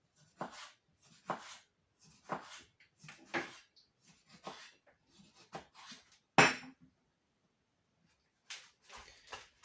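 A knife slicing a tomato on a board: short knocks and scrapes about once a second, one louder knock about two-thirds of the way through.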